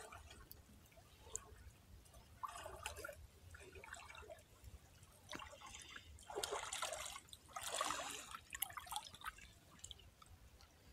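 Faint water sloshing and dripping in short, irregular bursts, from someone wading in shallow water.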